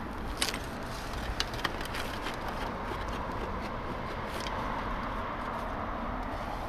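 Steady outdoor background rumble with a few faint clicks or light knocks, mostly in the first two seconds and once more about four and a half seconds in.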